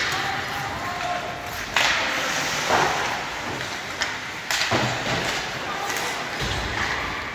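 Ice hockey play: four sharp knocks and thuds of puck and sticks against the boards and ice, over steady arena noise with some shouting.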